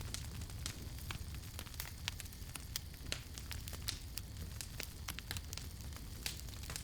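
Campfire burning with irregular sharp crackles and pops over a steady low rumble of the flames.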